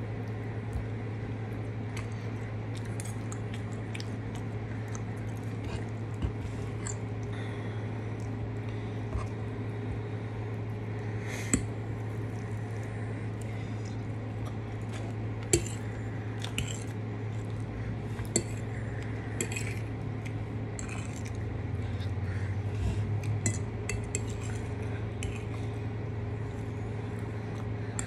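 A metal fork clinks and scrapes on a ceramic dinner plate now and then, with a few sharp clinks standing out about halfway through. Chewing goes on between the clinks, over a steady low hum.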